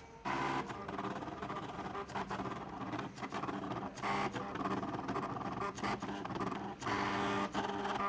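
Stepper motors of a homemade mini CNC machine built from salvaged CD/DVD-ROM drives, whining as the axes move in short runs, starting and stopping with shifts in pitch.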